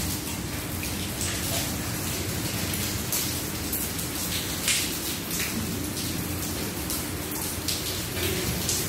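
Steady rainfall, with irregular sharp drops striking a hard surface.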